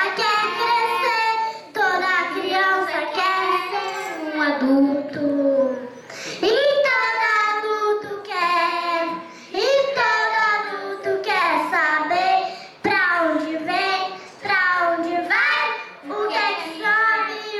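A young girl singing a song into a microphone, line after line with short breaths between phrases.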